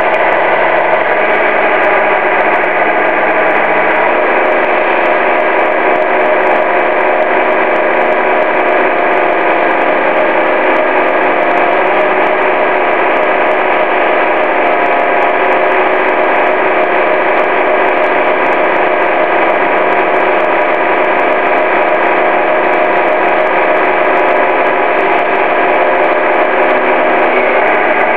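Radio-controlled semi truck's engine sound: a steady, diesel-like running drone as the truck drives, with a small change in pitch about four seconds in.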